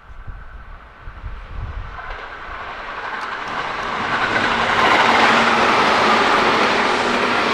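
Tobu Railway electric train approaching on the track, getting louder over about five seconds, then running past loudly.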